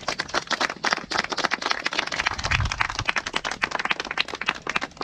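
A small crowd applauding, many hands clapping at once.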